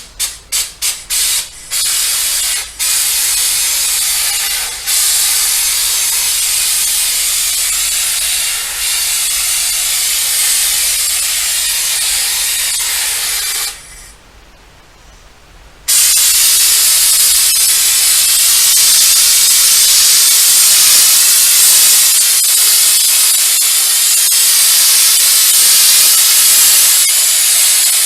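Flex Seal aerosol can spraying liquid rubber, applying another coat: a quick run of short bursts, then long steady sprays with a brief pause about 14 seconds in.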